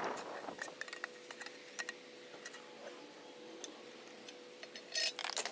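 Faint, scattered light clicks and ticks over a quiet steady hum, with a brief cluster of clicks near the end.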